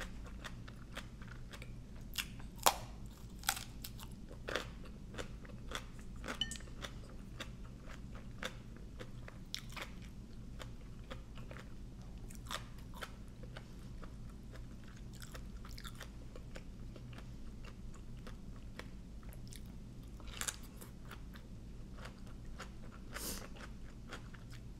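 Close chewing and crunching of crisp raw vegetables and papaya salad, with sharp crunches at each bite. The loudest crunches come a few seconds in and again near the end.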